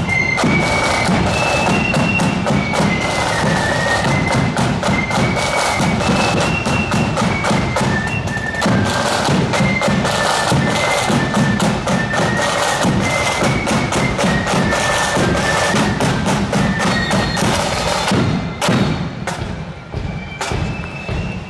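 Marching flute band playing: a high flute melody over a steady beat of snare drums and bass drum. About three-quarters of the way through, the tune stops and only a few loud drum strokes sound, before the flutes come in faintly again near the end.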